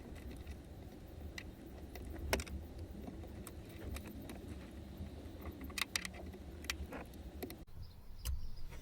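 Small clicks and metallic rattles of hand tools on wire as the insulation is stripped from speaker cable ends with cutters, a sharper tick every second or two.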